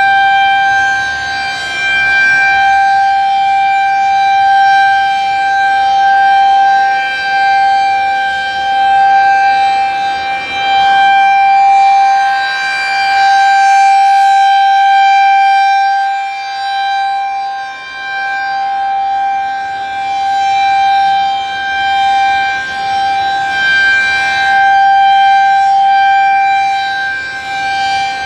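Refurbished Federal Signal 2001-SRNB rotating electromechanical siren sounding the steady Alert signal, super loud. It holds one unchanging pitch while its loudness swells and fades again and again as the rotating head sweeps past.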